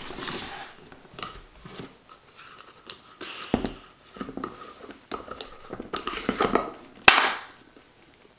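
Plastic glue bottles handled on a tabletop: bottles shifted and set down and a screw cap twisted off, a series of short clatters and rustles with a sharp knock about seven seconds in.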